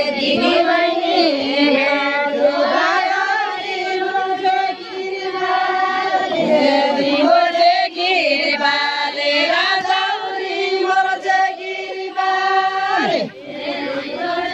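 A group of women singing a folk dance song together in unison, in long held notes that step up and down in pitch. Near the end the phrase falls away with a brief dip before the singing starts again.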